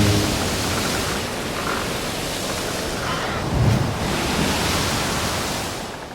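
Steady rushing noise of wind and water, with no engine sound, fading out near the end.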